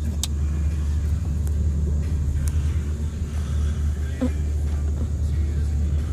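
A person snoring heavily: a deep, low rumble that goes on with little let-up.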